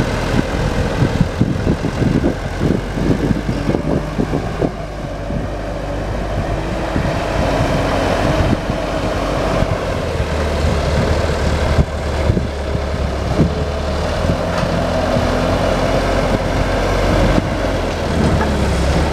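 Bobcat A300 skid-steer loader's diesel engine running steadily as the machine shoves a heavy log onto a pile, with a cluster of knocks and clatter in the first few seconds.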